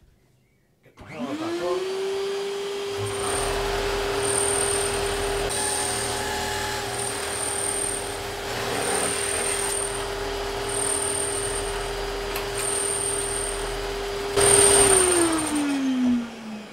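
Drum sander thicknesser starting up about a second in and running at a steady hum while an ash bow lamination on a tapered sledge is fed through and sanded, taking more off toward the tip. It is switched off near the end and its pitch falls as it winds down.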